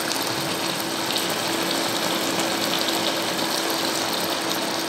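Potato and ridge-gourd poppy-seed curry bubbling in a pan at a simmer: a steady run of many small pops and bursting bubbles, with a steady low hum underneath.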